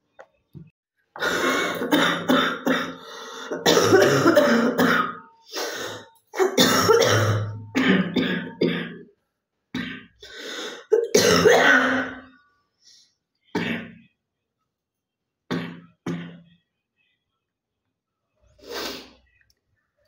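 A woman coughing hard and clearing her throat with a chesty cough that brings up phlegm, in about eight bouts. The bouts are long and close together in the first half, then shorter and further apart.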